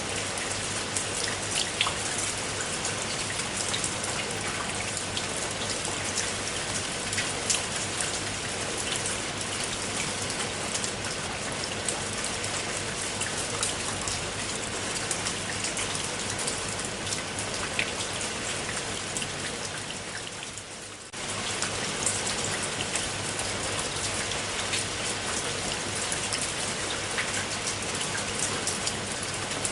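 Steady rain falling, with many individual drops ticking sharply through the hiss. About two-thirds of the way through it fades for a few seconds, then cuts back in abruptly at full level.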